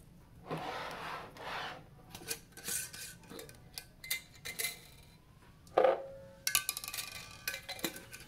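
Glass mason jars, metal lids and a metal stirring tool being handled: a rubbing scrape near the start, scattered light knocks, then one loud clink about six seconds in that rings on briefly. A run of quick clicks and scrapes follows as a metal lid is fitted to a jar.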